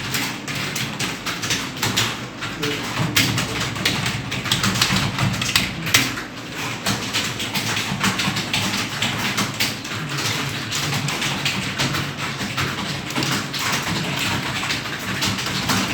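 Fast touch-typing on a computer keyboard: keys clicking in a rapid, unbroken stream.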